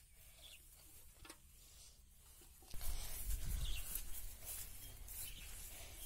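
Faint outdoor ambience with a few short bird chirps. About three seconds in, a much louder low rumble with scattered crackles starts up on the microphone.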